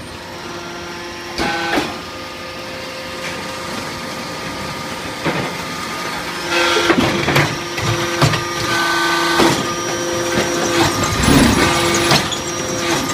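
QT5-15 automatic concrete block making machine running: a steady mechanical hum with irregular metallic clanks and knocks, which come more often in the second half, when the hum also grows stronger.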